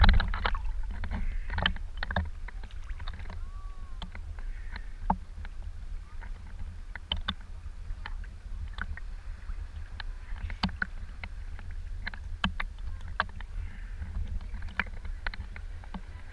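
Sea water lapping and splashing against a camera held at the water surface: many scattered sharp splash clicks over a low steady rumble.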